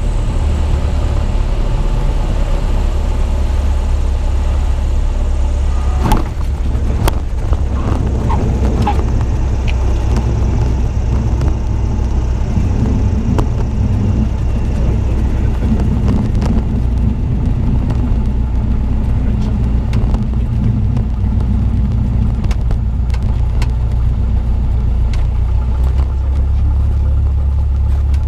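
Cessna 172M's four-cylinder Lycoming engine and propeller running at low power, a steady drone heard inside the cockpit. About six seconds in there is a sharp thump with a few clicks after it as the main wheels touch down on the runway.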